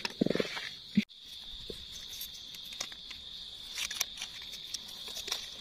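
Steady high-pitched insect buzz, with light ticking and rustling of dry leaf litter as hands pick mushrooms from the forest floor. A brief low hum and a sharp click come near the start.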